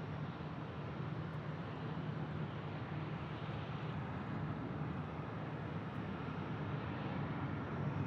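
Steady airport ambience: the even rumble and hiss of distant jet aircraft noise over a low, constant hum.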